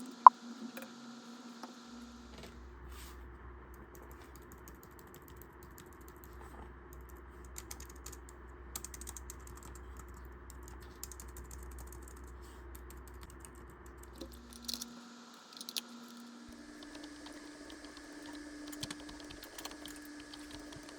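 Typing on a Logitech keyboard: scattered key clicks, thickest in the middle stretch, with a single sharp, loud tap just after the start.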